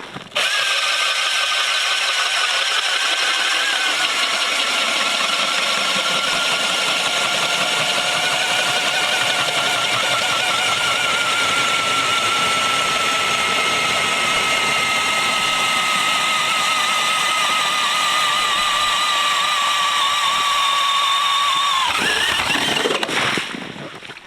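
Powered ice auger drilling a hole through lake ice on freshly sharpened blades. The motor starts suddenly, runs with a steady whine that slowly drops in pitch as it bores, and stops about 22 seconds in.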